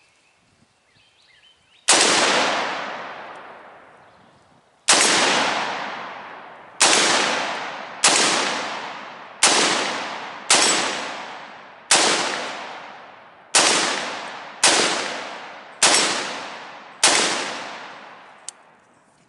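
Eleven single gunshots from a PSA 7.5-inch AR pistol. A lone shot comes about two seconds in, then ten more follow at an uneven pace of roughly one a second. Each shot dies away in a long fading echo.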